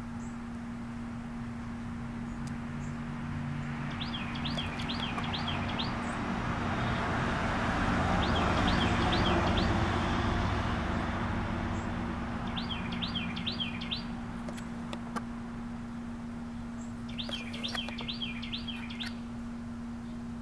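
A small bird chirping in quick series of four to six high notes, four times over. In the middle a broad rush of noise, a passing vehicle, swells and fades, and a steady low hum runs underneath.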